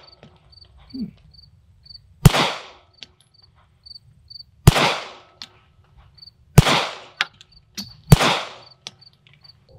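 Four shots from a Staccato P 2011 9mm pistol, spaced roughly two seconds apart, each trailing off briefly. A faint high insect chirping repeats steadily in the background.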